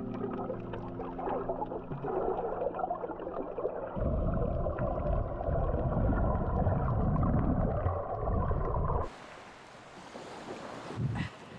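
Muffled underwater sound from a snorkeler's camera: held low tones, then heavy low rumbling and gurgling. About nine seconds in it cuts off abruptly to wind noise on the microphone above water.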